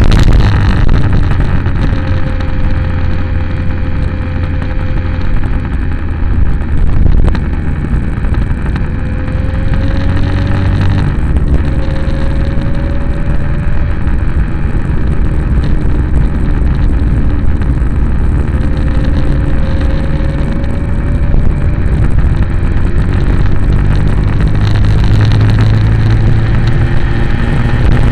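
Steady rumble of wind and road noise from a moving vehicle, picked up by a camera mounted on it. A faint whine rises in pitch now and then, several times over the stretch.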